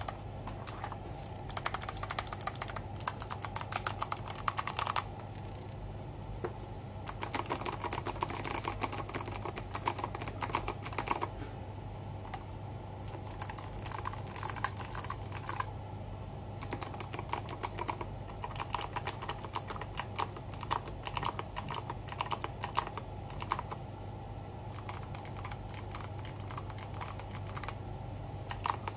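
Fast typing on a Machenike K600 custom mechanical keyboard: rapid key clacks in several bursts of a few seconds each, with short pauses between them.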